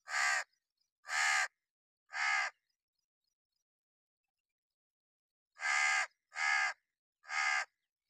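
A crow cawing: three harsh caws about a second apart, a pause of a few seconds, then three more caws.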